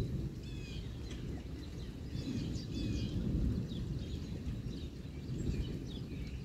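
A low rumble of distant rolling thunder that swells and fades, with birds chirping over it in short repeated calls.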